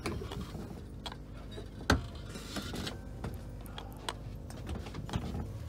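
Clicks of the plastic seat-adjustment buttons in a Thalys train seat's armrest being pressed, with one sharper click about two seconds in, over a steady low hum of the carriage.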